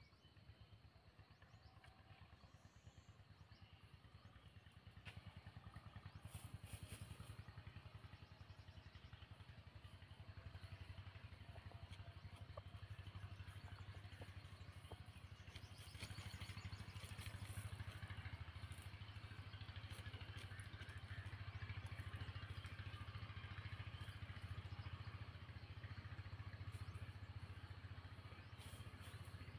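Faint, steady low drone of a distant engine, growing louder about halfway through.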